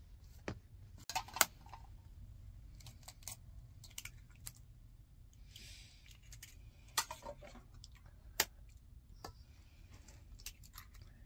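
Scattered clicks and taps of a metal spoon against a large aluminium bowl as a thick mashed potato-and-meat filling is stirred, with eggs being cracked into the bowl.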